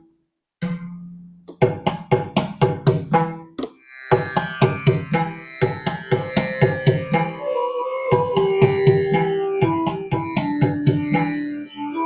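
Yamaha PSR-I510 arranger keyboard's Riyaz function playing a sampled mridangam sollukattu rhythm pattern, fast drum strokes, with held melodic notes stepping in pitch over the rhythm from about four seconds in.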